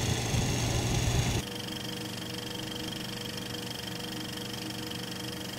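Bolex H16 16mm film camera's spring-wound clockwork mechanism whirring steadily as it runs film. About a second and a half in, the sound cuts abruptly to a quieter, very even whir with a clear hum.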